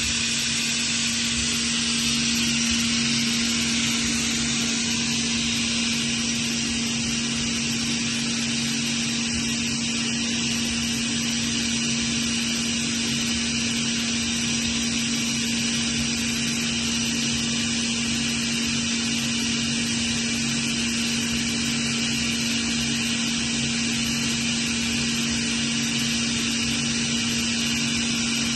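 Atlas Copco GA15+FF electric oil-injected rotary screw air compressor running steadily, a constant hum over an even rushing hiss.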